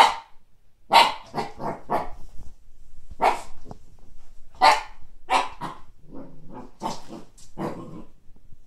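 Siberian husky puppy barking at a frisbee: about a dozen short, sharp barks in irregular runs, a few lower-pitched ones near the end.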